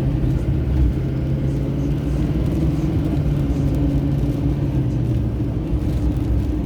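Steady low drone of a car's engine and tyres heard from inside the cabin while driving, with an even hum running underneath.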